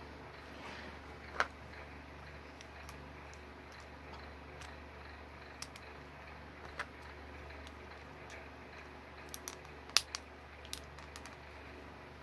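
Scattered light clicks and taps of small plastic LEGO pieces being handled and pushed into place, with a quick cluster of clicks about ten seconds in, over a faint low hum.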